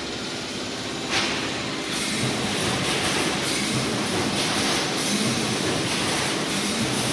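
A 3–6 mm wire mesh welding machine running, steady mechanical noise with a sharp knock about a second in.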